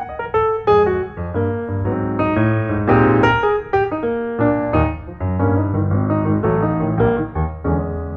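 Background piano music: a quick run of struck notes over low bass notes, settling into a held chord that dies away near the end.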